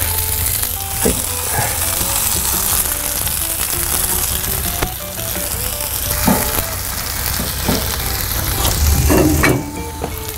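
Sliced red bell pepper and red onion sizzling in hot oil in a cast-iron skillet, a steady frying hiss with a few brief knocks as the vegetables go in and shift in the pan.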